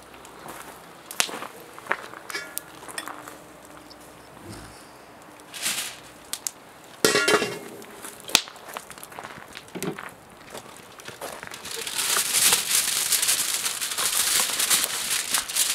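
Scattered clicks and knocks, with one louder knock near the middle, then aluminium foil crinkling continuously as a length is pulled off the roll, loudest in the last few seconds.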